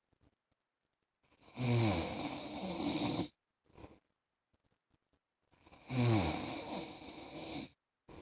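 A man snoring in his sleep: two loud snores about four seconds apart, each lasting around two seconds and dropping in pitch as it begins, with a short faint puff of breath after the first.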